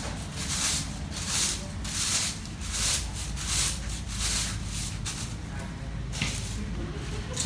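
Long-handled broom sweeping a tiled paving floor: a hissy brushing stroke about every two-thirds of a second, stopping about six seconds in.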